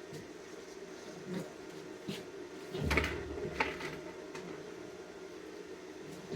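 A few scattered knocks and clunks from metal parts being handled, the loudest a dull thud about three seconds in, over a steady low hum.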